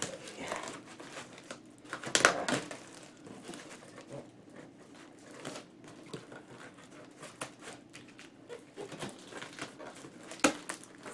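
Plastic packing tape on a cardboard box being cut and pulled open with a knife: irregular crinkling, tearing and scraping, loudest about two seconds in and again shortly before the end.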